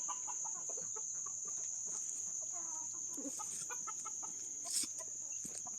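Chickens clucking softly: a scatter of short notes, with one longer drawn-out call about two to three seconds in.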